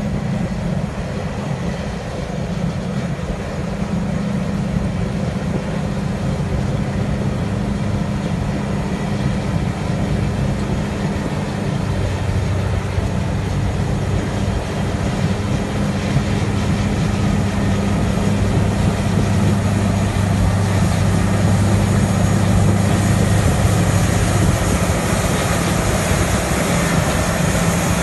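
Caterpillar D10 crawler dozer push-loading a Caterpillar 631 wheel tractor scraper: heavy diesel engines running steadily under load, slowly growing louder as the machines draw near.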